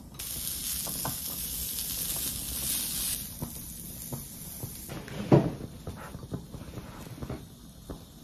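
Pieces of breaded beef cutlet (gyukatsu) sizzling on a hot mini tabletop grill plate. The sizzle starts suddenly and fades about three seconds in. About five seconds in there is one sharp knock, followed by light clicks.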